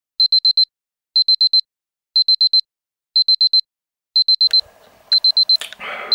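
Electronic wake-up alarm beeping: bursts of four quick high beeps, repeated once a second. Rustling and a couple of clicks join in during the last second and a half.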